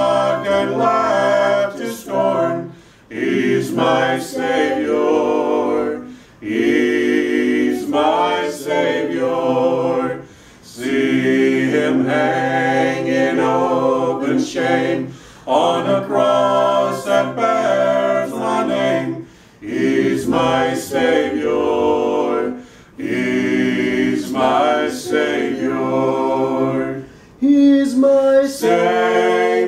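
A small mixed group of men and women singing a hymn a cappella, in phrases of a few seconds with short pauses between them.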